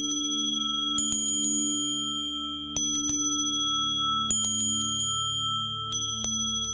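Singing-bowl meditation music: low, steady humming bowl tones underneath high, bright bell tones struck about five times, roughly every one and a half seconds, each ringing on until the next strike.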